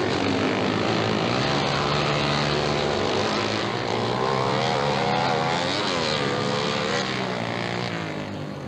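Dirt-track racing motorcycle engines running hard, their pitch rising and falling through the middle, the sound easing off somewhat near the end.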